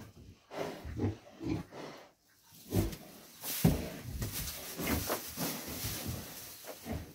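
A heavily pregnant sow grunting in short, repeated low grunts as she roots about in straw bedding, with straw rustling. She is restless close to farrowing.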